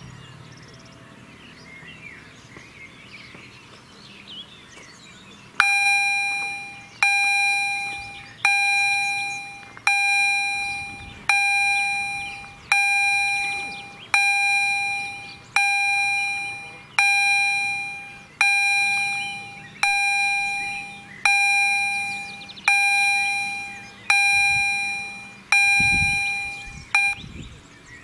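Level crossing warning bell ringing slowly, one struck, ringing tone about every second and a half, warning that a train is approaching. It starts about six seconds in and stops shortly before the end, once the barriers are down. Birds chirp faintly before the bell starts.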